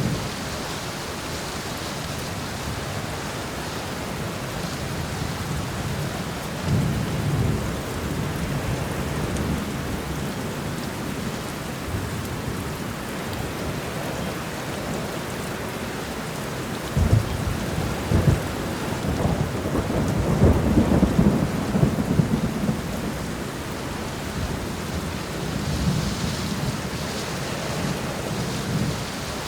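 Steady rain falling through a thunderstorm, with low rolls of thunder: a short one about seven seconds in, the longest and loudest rumbling on for several seconds past the middle, and a softer one near the end.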